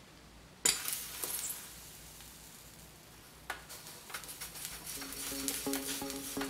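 A red-hot steel roller sizzling against a computer monitor's plastic screen: a sudden hiss about half a second in that fades away, then crackling and popping as the plastic melts. Music comes in near the end.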